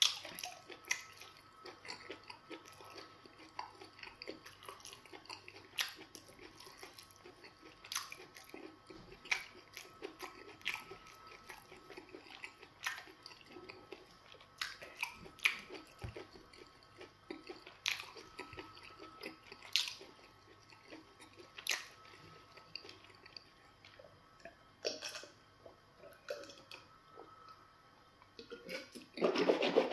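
A person chewing a mouthful of semo fufu and spinach soup, with short wet mouth smacks every second or two. Near the end come louder gulps as he drinks from a glass.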